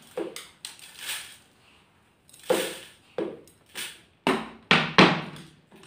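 Raw rice grains poured from a bowl into a plastic blender jug in a series of short pours, about eight in all, the loudest near the end.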